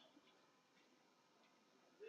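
Near silence: faint room tone with a couple of tiny clicks at the start.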